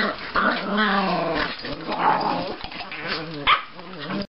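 Chihuahuas play-fighting, growling and snarling at each other in wavering tones, with a couple of sharp yips. The sound breaks off suddenly near the end.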